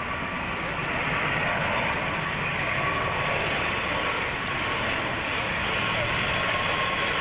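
Twin-turboprop airliner on final approach, its engines and propellers making a steady hum with a thin high tone. It grows slightly louder as the aircraft nears.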